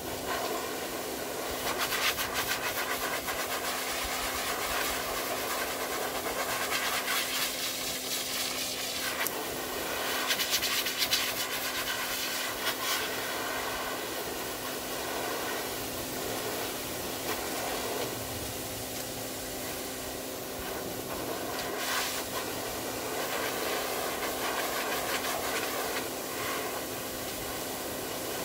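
Dog grooming blower running steadily: a loud rush of air with a steady motor hum underneath, swelling and easing as the nozzle is moved over the dog's coat to blow the water out of it.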